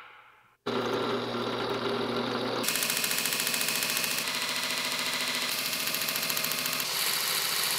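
2x72 belt grinder running, its motor humming; from about three seconds in, a steel plate turned on a pivot pin is ground against the abrasive belt, adding a steady grinding hiss as its corners are rounded off into a disc.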